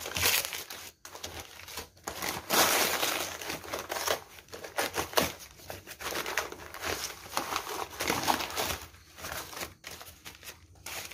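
Wrapping being crumpled and torn off ceiling fan blades, in irregular bursts of crinkling and tearing.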